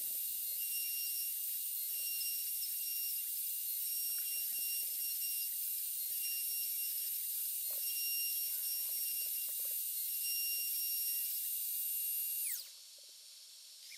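Makita RT0701C compact router on a DIY CNC machine, running with a steady high whine over a hiss; near the end it is switched off and the whine drops sharply in pitch as the motor spins down.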